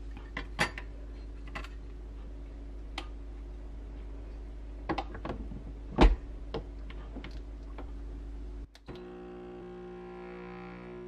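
Espresso machine: glass and metal clicks and knocks as a glass cup is set in place under the spout, the loudest knock about six seconds in. Near the end a steady buzzing hum starts as the machine's pump begins to run.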